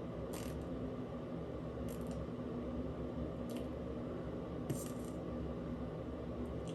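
Steady low hum with a handful of brief, faint, high-pitched clicks, roughly one every second or so.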